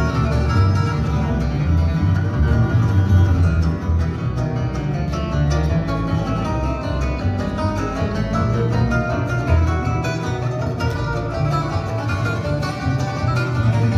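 Bluegrass band playing live, with a flatpicked acoustic guitar in front and upright bass notes underneath.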